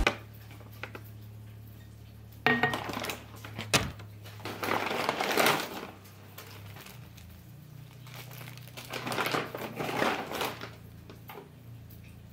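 Brown paper grocery bags rustling and crinkling in several bursts as items are lifted out of them, with a few light knocks of objects being handled and set down.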